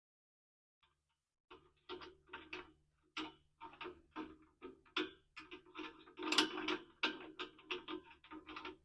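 Irregular metallic clicking and clinking of exhaust clamp and pipe hardware being handled and fitted, a few clicks each second, starting about a second and a half in and thickest around the six-second mark.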